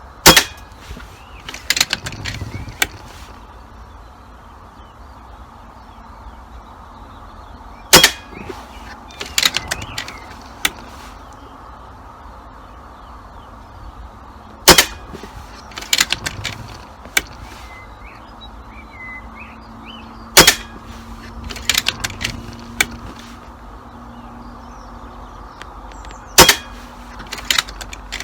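Air rifle firing a steady string of shots, five sharp cracks about six seconds apart, each followed by a few lighter clicks and knocks before the next shot.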